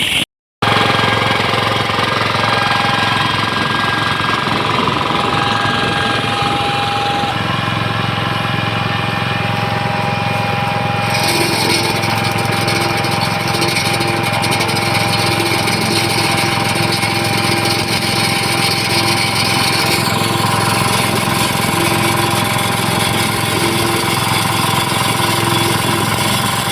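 Engine-driven road texturing machine running steadily, with a constant hum and a regular pulse of about one and a half beats a second in the second half; the sound shifts abruptly a few times.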